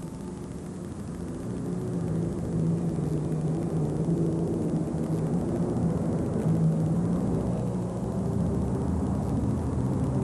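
John Deere super stock pulling tractor's engine running hard under load as it drags the weight-transfer sled. It grows louder over the first couple of seconds, then holds a steady pitch.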